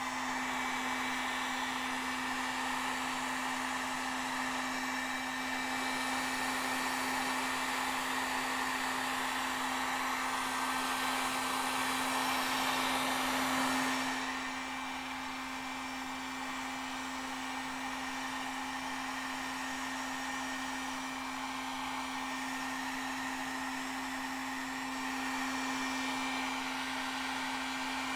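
Heat gun running steadily: an even blowing rush with a constant hum-like tone, turning a little quieter about halfway through.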